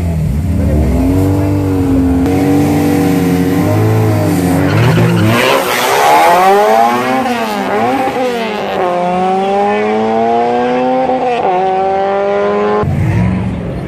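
Car engine revving, then launching with tyre squeal and accelerating away, its note climbing steadily in the second half before cutting off sharply near the end.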